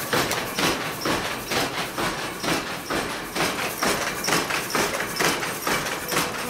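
Power loom weaving plain cloth, running with a steady mechanical clatter of about two to three sharp clacks a second as the shuttle is thrown back and forth and the reed beats up each pick.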